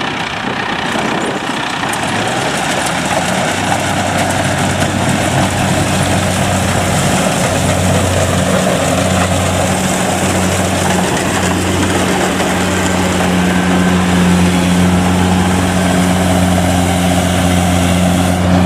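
Kubota DC70 rice combine harvester running as it cuts and threshes rice: a steady diesel engine hum over a wide hiss of machinery. The hum firms up about three seconds in and grows slightly louder toward the end.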